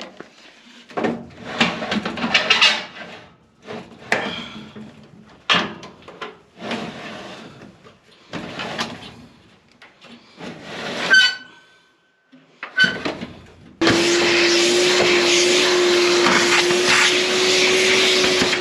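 A series of short, irregular noisy bursts from cleaning work, then about fourteen seconds in a small electric air blower switches on and runs steadily, blowing dust out of the furnace cabinet, its motor giving a constant hum.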